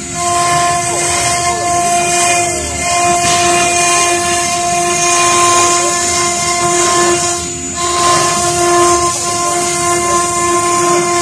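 Stone CNC router spindle running with a steady whine while its bit engraves wet marble, a gritty grinding hiss beneath the whine. The sound dips briefly about seven seconds in.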